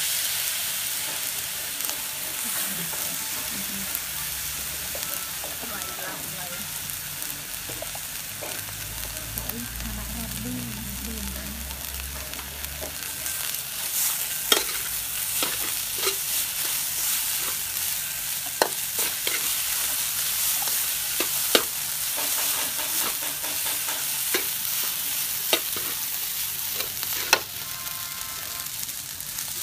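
Rice frying in a hot stainless-steel wok with a steady sizzle. About halfway through, a metal spatula starts stirring and tossing the rice, striking the wok in sharp clinks every second or two.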